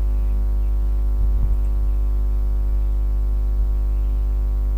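Steady electrical mains hum with a dense stack of overtones, a constant buzz in the microphone recording.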